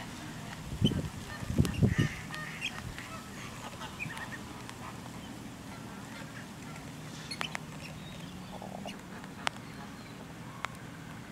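Wetland wildfowl calling: ducks and geese honking and quacking, with the loudest low calls about one to two seconds in, over a steady background of birds. A couple of sharp clicks come near the end.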